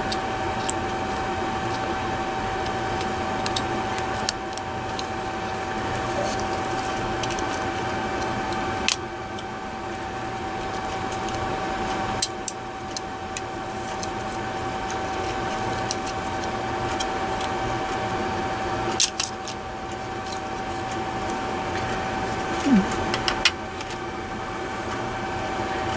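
A few sharp clicks and taps of a small circuit board being pried and worked out of a plastic computer-mouse shell, over a steady background hum with a constant whine.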